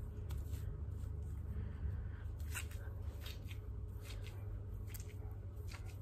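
Hands scrunching mousse through wet curly hair: soft, irregular squelching crackles, over a low steady hum.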